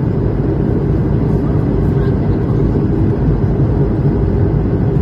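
Steady low drone of an airliner's engines and airflow heard from inside the passenger cabin.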